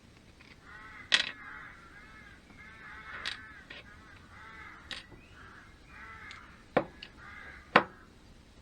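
A handful of sharp metallic clicks and knocks from engine parts and tools being handled, the loudest about a second in and near the end. Behind them a bird calls over and over in short, harsh, arched calls.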